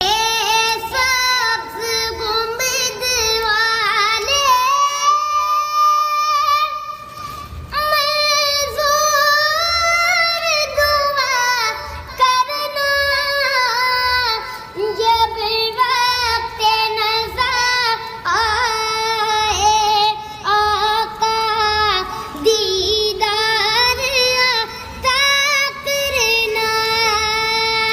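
A high female voice singing a melismatic Islamic devotional song (naat), in long ornamented phrases over a faint steady low beat.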